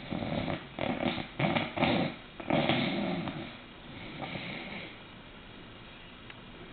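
A sleeping bulldog snoring: several short snores in quick succession over the first two seconds, then one longer, louder snore and a fainter one.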